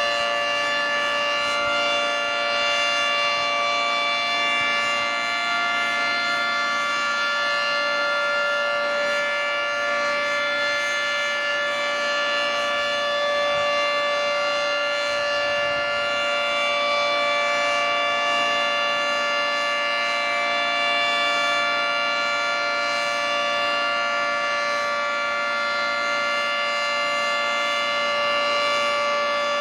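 Federal Signal 3T22 outdoor warning siren, with 10- and 12-port rotors, sounding the steady full-alert signal: a loud, constant chord of tones that holds its pitch without rising or falling.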